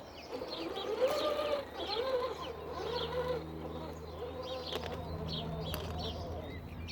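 Birds calling: a string of short, low, arching cooing calls repeated every half second or so, with higher chirps over them. A steady low hum comes in about two seconds in.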